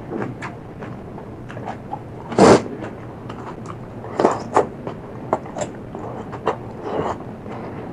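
Close-miked chewing and crunching of food, with many small wet mouth clicks. There is one loud crunch about two and a half seconds in and a few more crunches later on.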